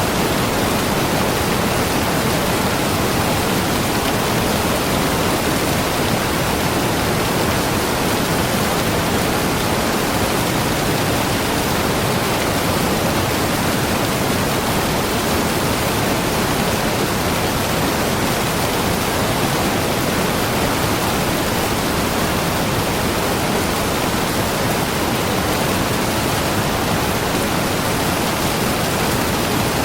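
Waterfall pouring steadily: a constant, even rush of falling water with no breaks or changes.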